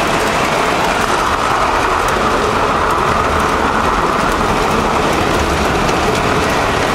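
Model subway train running along layout track, heard from a camera riding on the train: a steady rolling and motor whir with faint clicks from the wheels on the rails.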